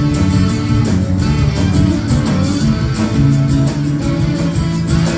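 A live rock band playing an instrumental passage, with guitars prominent over bass and a steady cymbal beat.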